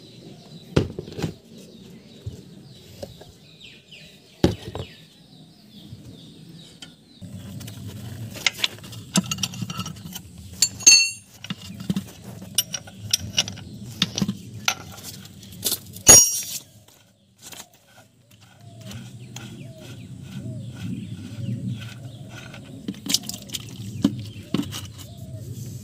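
Sharp metallic clinks and clicks of a spanner working a tractor's engine-oil drain plug, scattered and uneven, with two louder clinks near the middle. A low hum comes and goes underneath.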